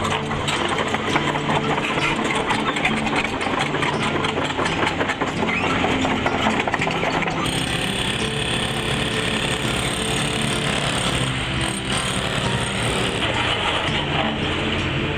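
Construction-site machinery running: a steady engine hum under rapid, continuous clattering. The sound changes abruptly about halfway through to a more even din.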